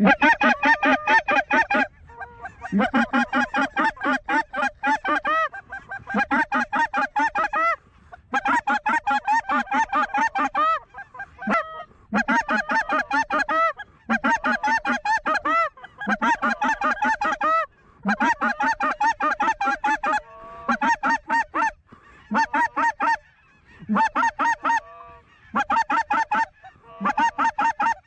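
Goose call blown hard and fast: rapid clucks and honks in runs of about two seconds, with short breaks between runs, calling to circling lesser Canada geese.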